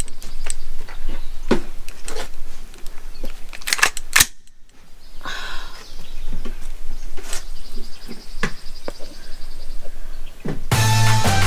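Gunshots at an outdoor shooting range: sharp cracks at irregular intervals, the loudest two close together about four seconds in. Electronic music with a heavy beat comes in near the end.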